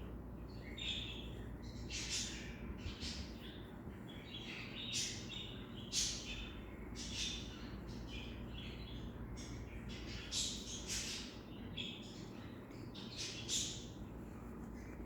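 A string of short, high chirps at uneven intervals, about one or two a second, over a steady low hum.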